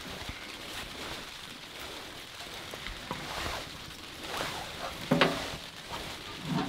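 Kindling fire crackling inside a small metal tent wood stove with its door open. A sharp knock with a short ring about five seconds in, and a softer one near the end.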